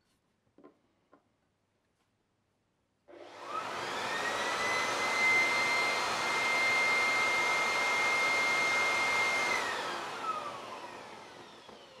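Handheld air blower, turned up one step to its third power setting, spinning up about three seconds in: a rush of air with a rising whine that settles into a steady high tone. It spins down from about nine and a half seconds and fades out near the end. Two faint clicks come in the quiet first second.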